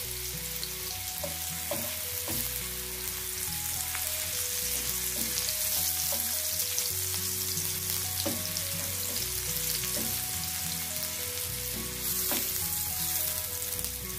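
Chopped onion sautéing in hot oil in a non-stick frying pan, sizzling steadily as it softens. A wooden spatula stirs it, with a few sharp clicks against the pan.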